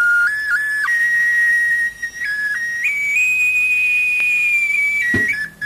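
Solo bamboo flute (suling) playing a slow melody to open a Sasak cilokak song, stepping between held high notes with one long held note in the middle. A low thump comes near the end as the rest of the band enters.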